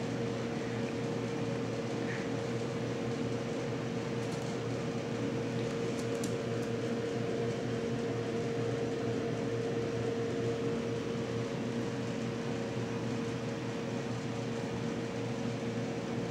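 Steady mechanical hum at one constant pitch, with a few faint ticks about four and six seconds in.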